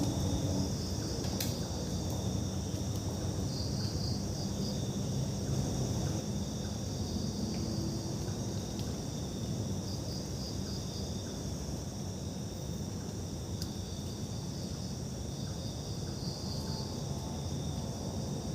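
Insects, crickets among them, chirping steadily in a high-pitched chorus, with short trills now and then, over a low steady rumble.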